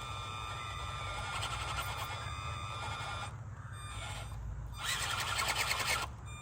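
Axial SCX24 mini RC crawler's small electric motor and gearbox whining as it crawls on the rock. It gets louder, with a fast ticking, for about a second near the end.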